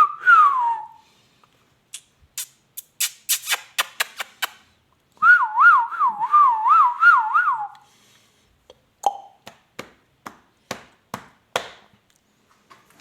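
Clear whistling around 1 kHz. Near the middle comes a wavering whistle that swings up and down about six times over two and a half seconds. Sharp taps or clicks sound before and after it.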